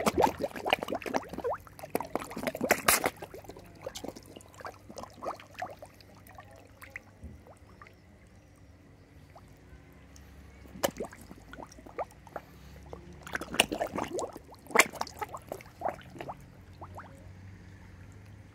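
Koi splashing and mouthing at the water surface in two flurries of quick wet splashes: the first over the first few seconds, the second from about eleven to sixteen seconds in.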